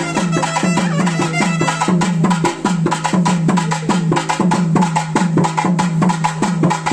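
Traditional South Indian festival music: fast, even drumming over a steady low drone.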